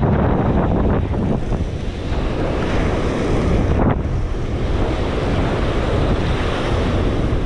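Surf breaking along the shore, with strong wind buffeting the microphone in a steady low rumble.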